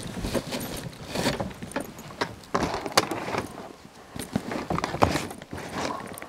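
A backpack being handled and shifted about on a hard plastic lid: irregular rustling, knocks, and light jingling of its metal zipper pulls.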